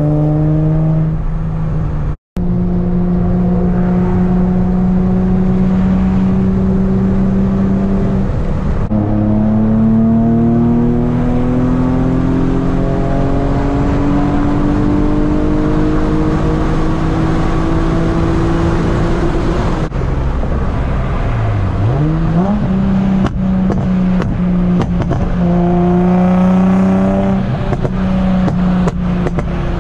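Nissan 350Z's 3.5-litre V6, tuned with bolt-on parts, heard from inside the cabin pulling hard under acceleration: its pitch climbs steadily through each gear and drops back at the gear changes, with one more dip and rise past the middle. The sound cuts out for a moment about two seconds in, and a few short clicks come near the end.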